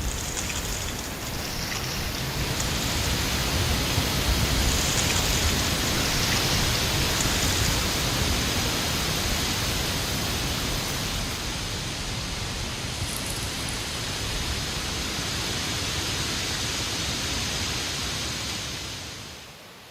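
Strong autumn wind blowing steadily, a loud hiss with a low rumble of wind buffeting the microphone; it swells a few seconds in and dies away just before the end.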